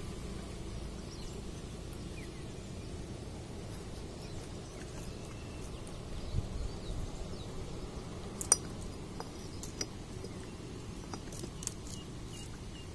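Steady low wind rumble on the microphone, with scattered sharp clicks and ticks from fishing rods and gear being handled; the loudest click comes about eight and a half seconds in.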